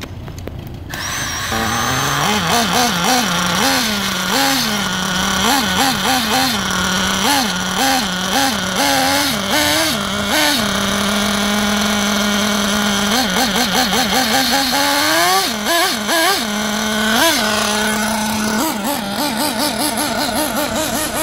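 Two-stroke nitro glow engine of a Team Losi 8IGHT 4.0 1/8-scale RC buggy starts up about a second in. It then idles, with repeated quick throttle blips that rise and fall in pitch, and settles to a steady idle for a couple of stretches.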